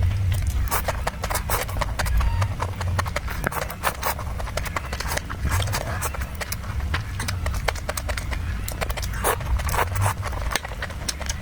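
Close-miked eating: chewing and mouth sounds, a rapid irregular run of clicks and smacks over a low rumble.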